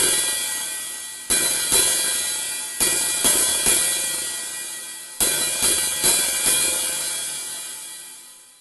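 Open hi-hat cymbal struck about ten times in small, irregular groups. Each hit leaves a bright, sizzling wash that slowly dies away, and the last one rings out and fades near the end.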